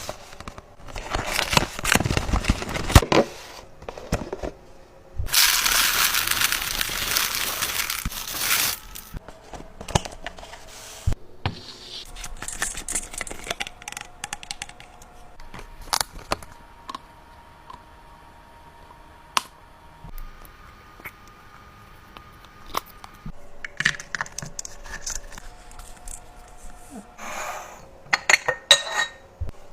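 Kitchen handling noises: scattered clicks and knocks, as of plastic food containers and lids being handled, with crinkling of packaging. There is also a steady rushing noise for about three seconds, starting about five seconds in.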